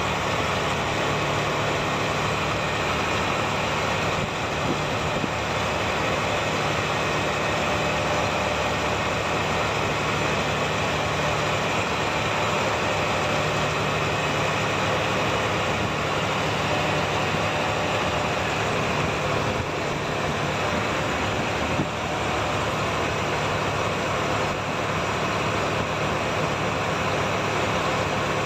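A fishing boat's engine running steadily at an even pitch, mixed with the wash of water and wind against the moving boat.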